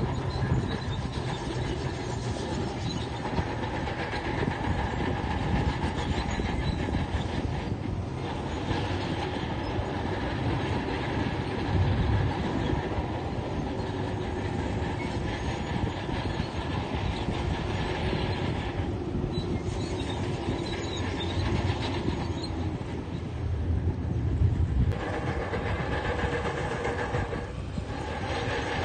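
Crawler bulldozer's diesel engine running steadily under load, with its steel tracks clanking; the engine note shifts a few times.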